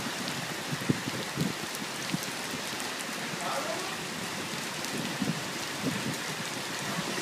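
Heavy rain pouring down onto wet, flooding pavement: a steady hiss with a few sharp drop ticks now and then.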